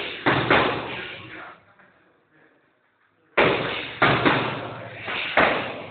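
Boxing gloves hitting focus mitts: a quick combination of sharp smacks at the start, a pause of about two seconds, then a longer combination of four or five smacks. Each hit trails off slowly, echoing in the room.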